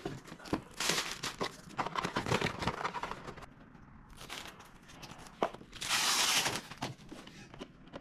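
Plastic packaging crinkling and tearing as it is pulled off a new robot vacuum cleaner, in a busy stretch of crackles followed by one longer rip about six seconds in.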